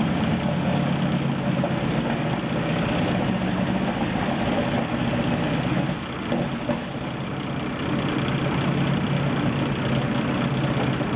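Sherman tank engine running steadily at low revs as the tank creeps forward, easing off briefly about six seconds in.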